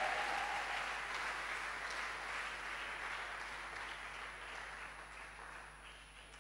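Congregation applauding, the clapping dying away gradually over several seconds.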